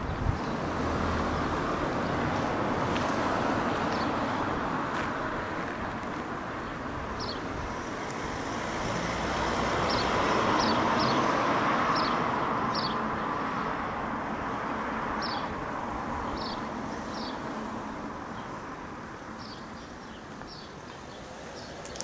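Road traffic going by: tyre and engine noise that builds to its loudest about halfway through, then fades away. Small birds chirp over it in short, high, downward notes.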